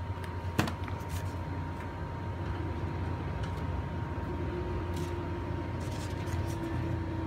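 A steady low mechanical hum, with one sharp click about half a second in and a few fainter clicks and taps later.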